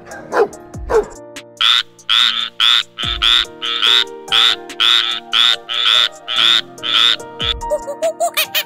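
A frog croaking in a regular run of short calls, two or three a second, for about six seconds, over background music. Just before the croaking a small dog gives two yips, and near the end quick short chirps begin.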